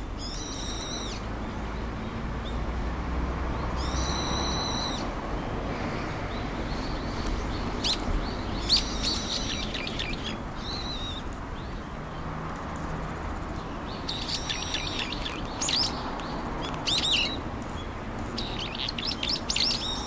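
Brown-eared bulbul calling: shrill, ringing calls about a second long, repeated every few seconds, with quick sharp chirps in between. A steady background hiss runs underneath.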